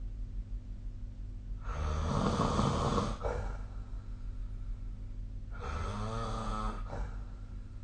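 A sleeping person snoring: two snores about four seconds apart. The first is loud and rough; the second carries a pitched buzz.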